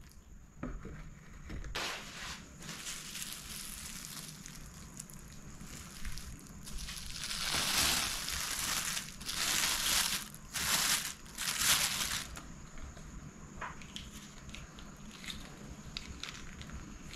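Thin plastic takeaway bag crinkling and rustling as it is opened and pulled off a mound of kottu roti, in several loud bursts towards the middle, then dying away to a few faint ticks.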